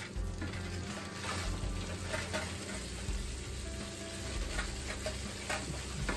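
Metal spatula and turner scraping and clicking against a foil-lined stainless steel baking pan as a whole baked trout is worked loose and lifted, with scattered sharp clicks over a steady hiss.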